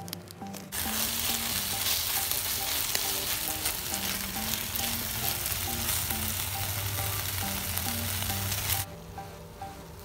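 Rice sizzling and frying in a hot skillet as it is poured in and stirred, a loud steady sizzle that starts suddenly about a second in and cuts off sharply near the end.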